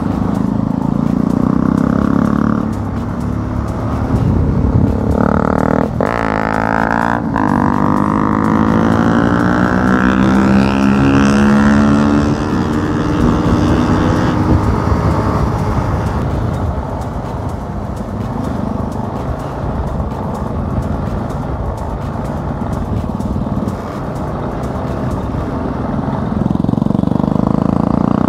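Bajaj RS 200 single-cylinder engine and exhaust under a rider's throttle. The revs climb through the gears, with quick breaks at the shifts about 6 and 7 seconds in, then drop off while cruising and rise again near the end.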